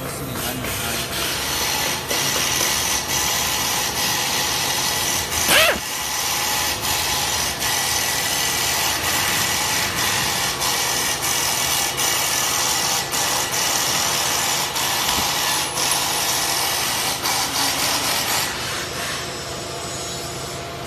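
Steady workshop machine noise with a hiss, dotted with small clicks and knocks of tools on the scooter's metal stem as its bolts are taken out. A short squeal rises and falls about six seconds in, and the noise drops for the last couple of seconds.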